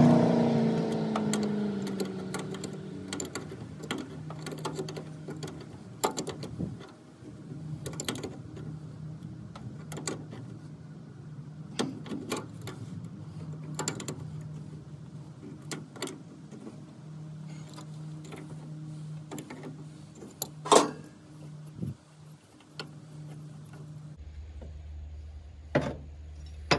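The 1968 Plymouth Valiant's engine, revved just before, dies away over the first couple of seconds. Then scattered metallic clicks and taps of hand work on the car go on over a steady low hum, with one sharper clack about two-thirds of the way through.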